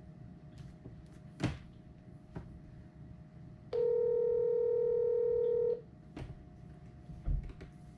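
Telephone ringback tone from a phone on speaker: an outgoing call ringing at the far end, one steady two-second ring starting about four seconds in. A few light clicks and taps around it.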